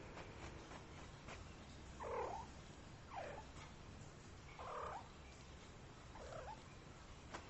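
Persian kitten trilling: four short, faint chirping trills spread a second or more apart.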